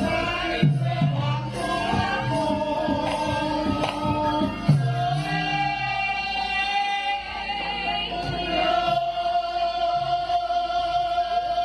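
Javanese gamelan music with a sung vocal line that holds long, wavering notes, over recurring low drum strokes that bend in pitch.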